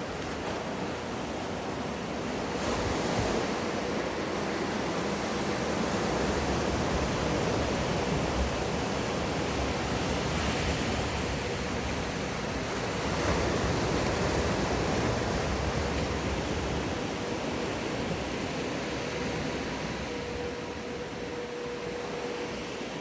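Rushing, breaking water of a wave-pool wave, swelling a few seconds in and easing off near the end, with a faint steady hum underneath.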